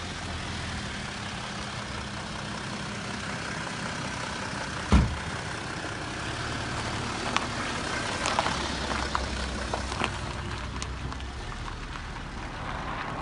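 An engine idling steadily with a low, even hum, with one sharp thump about five seconds in and a few light clicks later on.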